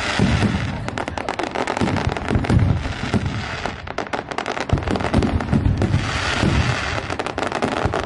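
Fireworks display: a dense barrage of aerial shells bursting with rapid crackling pops and low booms, briefly easing about four seconds in before picking up again.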